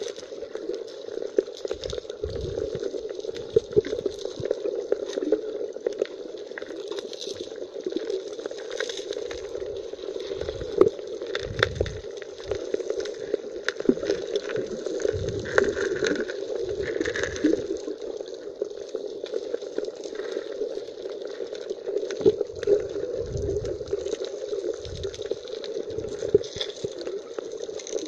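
Underwater sound of the sea over a pebbly seabed, heard with the microphone submerged: muffled gurgling water with a steady hum, scattered clicks and irregular low thumps.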